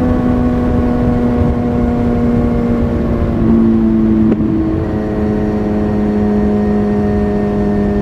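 Kawasaki Z900's inline-four engine breathing through an Akrapovic carbon full-system exhaust, running at a steady cruise with its pitch easing slowly down. About three and a half seconds in, the pitch steps down a little, with a brief click a moment later.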